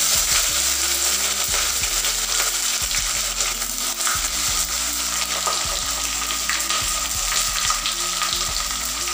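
Sliced onions sizzling steadily in hot mustard oil as they are added to the pot, with small crackles through the frying hiss.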